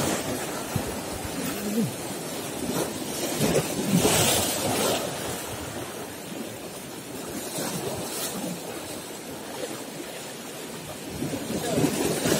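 Sea waves breaking and washing over rocks at the shoreline, swelling and ebbing several times, with some wind on the microphone.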